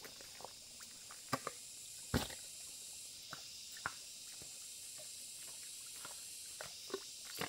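Feet and hands squelching in soft wet mud: a scattering of short wet sucking and splatting sounds, the loudest about two seconds in, over a steady high hiss.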